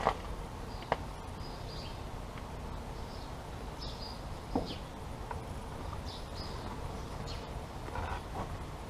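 Steady low outdoor background with faint, scattered high bird chirps and a few light clicks, the sharpest about four and a half seconds in.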